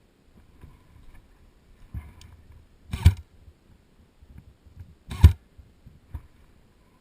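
Two sharp, loud knocks about two seconds apart, with fainter clicks and rustling between them.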